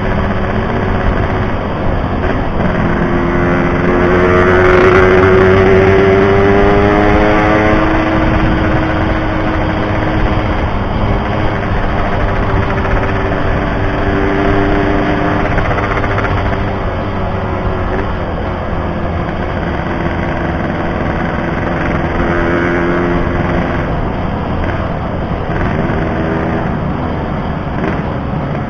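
Yamaha RX-King 135 cc two-stroke single-cylinder motorcycle engine running on the move, rising in pitch as it revs up from about three seconds in, loudest around five seconds, then settling and easing off.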